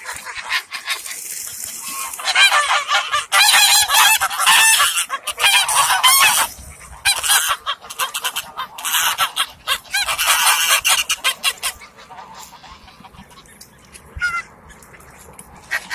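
A flock of geese honking loudly, many overlapping calls, as they crowd in to be fed. The calling comes in two long bouts, from about two to six seconds in and again around ten seconds, and dies down near the end.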